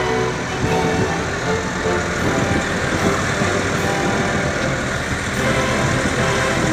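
Steady running noise of a motor vehicle on the road, engine and road noise together.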